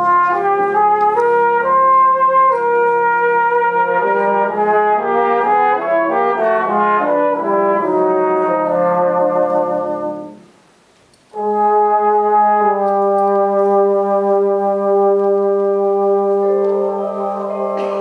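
Full brass band of cornets, trombones, euphoniums and tubas playing a moving passage of quick changing notes. About ten seconds in it stops for a short silence, then comes back in on a long held chord.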